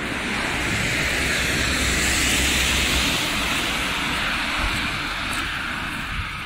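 A vehicle passing on the wet, slushy road: the hiss of tyres on slush with a low engine rumble, swelling to its loudest two to three seconds in and then slowly fading.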